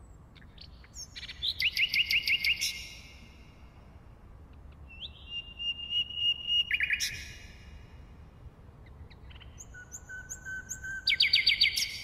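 Common nightingale singing in three separate phrases a few seconds apart, each made of fast repeated notes. The middle phrase opens with a long held whistle, and the last starts with a lower whistle that breaks into a rapid trill.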